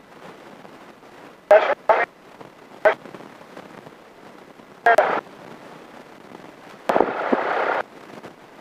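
Aircraft intercom audio: four short clipped bursts over a low steady hiss, then a longer burst of hissing noise about seven seconds in, as headset microphones cut in and out.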